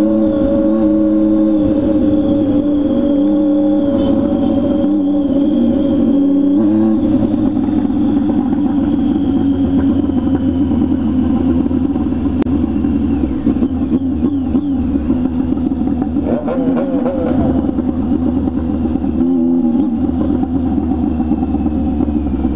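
Motorcycle engine running loud through its exhaust while riding. Its pitch holds steady for several seconds, then wavers with the throttle, with short revs about two-thirds of the way through.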